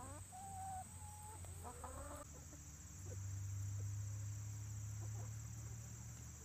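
Chickens clucking in short rising and falling calls; about two seconds in the calls stop and a steady low hum is left, with a faint steady high tone above it.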